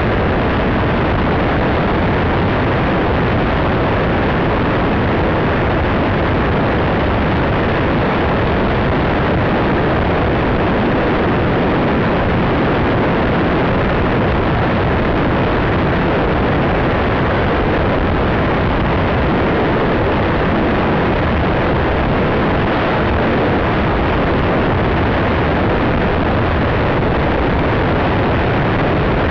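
Steady, loud rush of wind over the onboard camera of an FPV model plane in flight: an even noise with no distinct motor tone or breaks.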